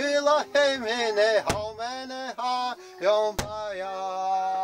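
A man singing a chant in long held, wavering notes, with a large laced hide drum struck with a beater twice, about two seconds apart.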